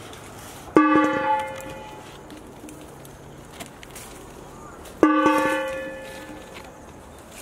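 A metal bowl rings out twice, about four seconds apart, as freshly picked limes are dropped into it. Each drop is a sharp clang followed by a bell-like ring that fades over about a second.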